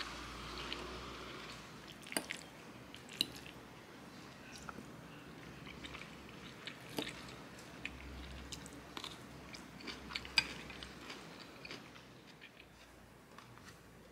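Close-up eating sounds: a person chewing pasta, with sharp clicks of a metal fork against a ceramic bowl, a few louder ones scattered through.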